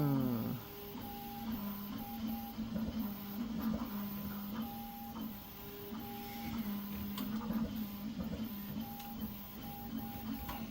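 Prusa XL 3D printer running a print: its stepper motors give steady humming tones that switch and shift in pitch in short steps as the axes move.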